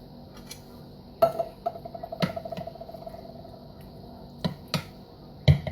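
Kitchen utensil and tin can clinks and knocks while canned tomatoes go into the cooker: a metal clink about a second in that rings on for about two seconds, then a few sharper knocks near the end.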